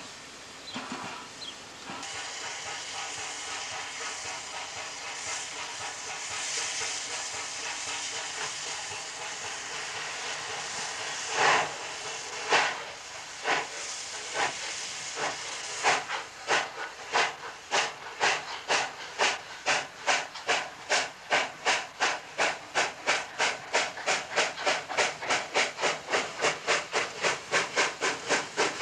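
Ol49 steam locomotive working a train: first a steady hiss of steam, then a couple of single exhaust chuffs, then from about halfway a regular beat of sharp chuffs, about two and a half to three a second and slowly quickening.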